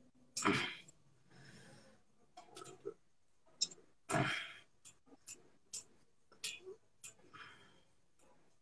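Scattered sharp clicks and taps, with two short breathy bursts about half a second and about four seconds in.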